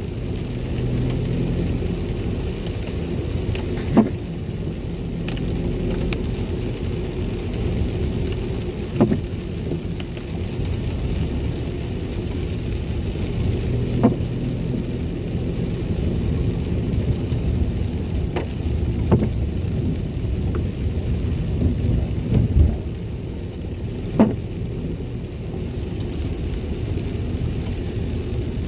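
A car driving on a wet road in the rain, heard from inside the cabin: a steady low rumble with tyre hiss. A short sharp click comes about every five seconds.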